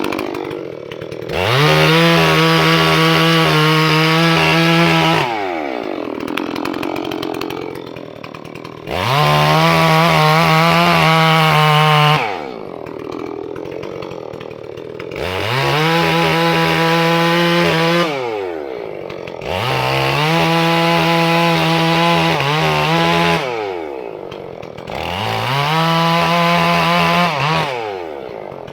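Holzfforma G466 (Stihl 046 clone) chainsaw on its first tank, being broken in. It is opened up to full throttle and held there for a few seconds, then dropped back to idle, five times over, as it makes cuts in firewood.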